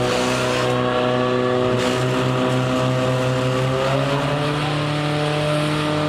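Portable fire pump engines running steadily, feeding the hoses of two lanes whose water jets are spraying at the targets.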